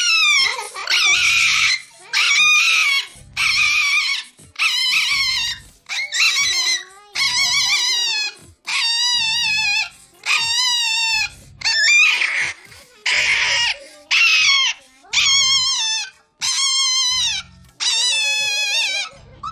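Chihuahua screaming over and over: loud, high-pitched, wavering cries about a second long, one after another roughly every second and a bit, with short gaps between them.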